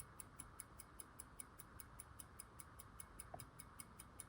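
Freshly serviced antique A. Lange & Söhne pocket watch ticking faintly and evenly, about five ticks a second.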